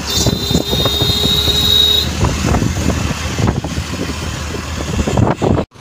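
Wind buffeting a phone microphone and road noise on a motorcycle moving at highway speed. A steady high whine runs through the first two seconds.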